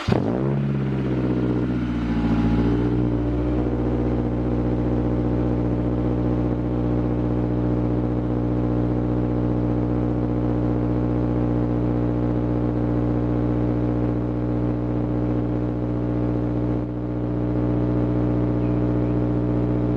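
Honda S2000 AP1's F20C inline-four starting through a J's Racing 70RS single-exit exhaust and decat test pipe: it catches at once, flares, and settles within about three seconds into a steady idle.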